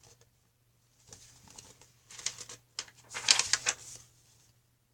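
Paper rustling in a series of short scratchy bursts as the pages of a picture book are handled and turned, loudest about three and a half seconds in.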